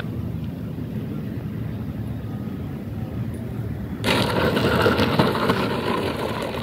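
30cc gasoline model airplane (Ultra Stick) running at low throttle on its landing approach. About four seconds in, a louder rough rushing sound starts as it rolls across the dirt strip close by.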